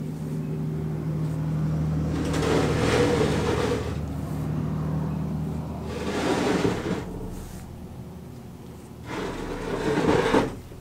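A heavy homemade steel CNC router being slid and turned by hand on a tabletop: its steel C-channel base scrapes and rumbles across the surface in several pushes.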